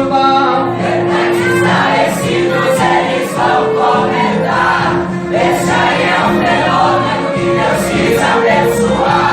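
Choir singing a gospel hymn over instrumental accompaniment, with held notes and occasional sharp high strokes.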